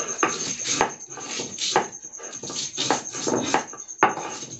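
Stone grinder rubbing and knocking against a silbatta, a flat stone grinding slab, crushing salt and dried red chillies in rough back-and-forth strokes about twice a second.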